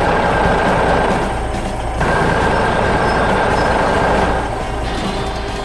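Heavy construction machinery running, a dense mechanical rumble with a steady high whine. The sound breaks off briefly about two seconds in, starts again, and drops to a lighter mix near the end.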